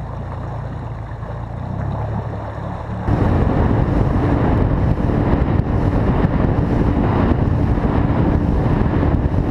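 Outboard motor on an aluminium Alumacraft fishing boat running at low speed. About three seconds in it becomes louder and steady as the boat runs fast, with wind on the microphone and water rushing past the hull. It cuts off abruptly at the end.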